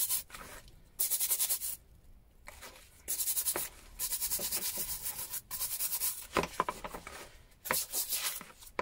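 A stiff hand brush scrubbing small rusty adjustable wrenches in a plastic bowl of Deox-C rust-remover solution, in quick back-and-forth strokes. The scrubbing comes in several bursts with short pauses, cleaning off dirt loosened by the soak.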